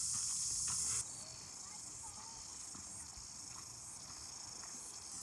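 A steady, high-pitched shrill of insects, loud for the first second and then abruptly fainter for the rest.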